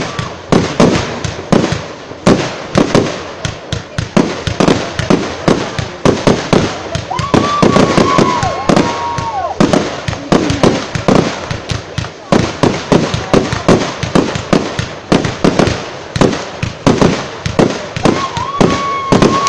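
Aerial fireworks display: a rapid, continuous barrage of bangs and crackles. A held high tone sounds over the bangs twice, about seven seconds in and again near the end.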